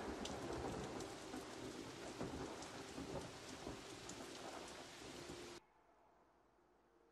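Dense rushing noise with scattered sharp crackles, cutting off suddenly about five and a half seconds in to near silence.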